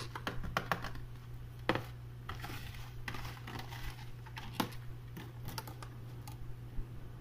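Thin clear plastic food tub being handled and tipped over a plastic bowl, giving quick irregular clicks and crinkles, over a steady low hum.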